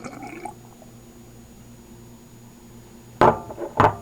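Water pouring into a Mr. Coffee espresso machine's water tank, which stops about half a second in. Near the end come two loud knocks.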